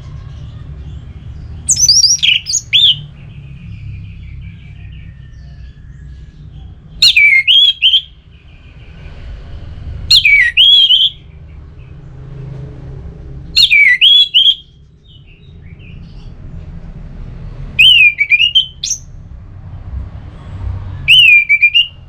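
Orange-headed thrush (anis merah) singing in loud, separate full phrases (ngeplong): six whistled phrases, each about a second long, coming every three to four seconds, with a steady low hum underneath.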